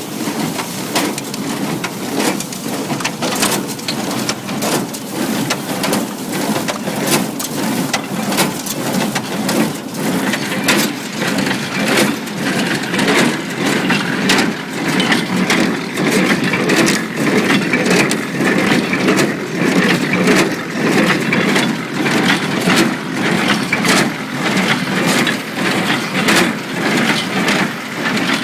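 International Harvester 47 hay baler running, its plunger packing hay with a rhythmic rise and fall and many sharp clicks and knocks from the pickup, auger and plunger. The baler is running freely after its seized pickup and auger were freed and plunger parts replaced.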